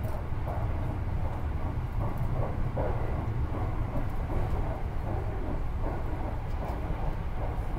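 Marine Liner electric train running at speed, heard from inside the passenger car: a steady low rumble of wheels on rail with an uneven, rattling noise above it.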